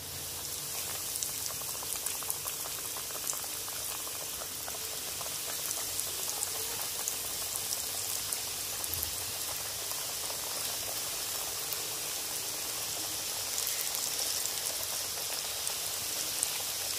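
Flour-coated chicken pieces deep-frying in hot oil in a wok: a steady sizzling hiss with a dense crackle of popping. It starts suddenly as the first piece goes into the oil.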